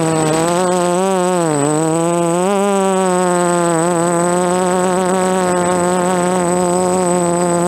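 DJI F330 quadcopter's electric motors and propellers buzzing in flight. The pitch wavers with throttle, dips about one and a half seconds in, climbs back and then holds steady.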